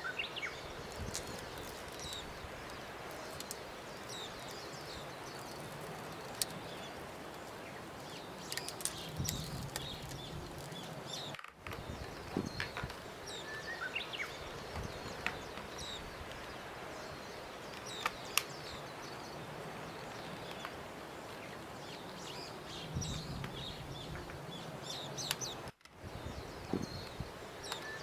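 Nature ambience: small birds chirping now and then over a steady outdoor hiss. The same stretch seems to repeat about every fourteen seconds, cutting out briefly at each repeat.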